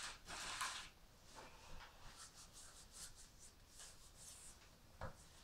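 A short rustling scrape in the first second, then faint, scattered crackles from a wood fire burning in a brick stove, with one soft knock near the end.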